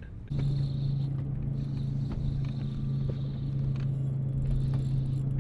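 A boat motor running with a steady, even hum that starts abruptly just after the beginning.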